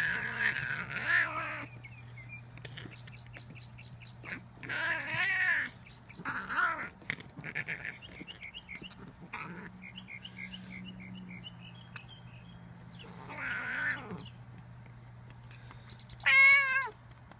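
A domestic cat meowing in a string of short, bending calls, about five in all, with the loudest and highest one near the end.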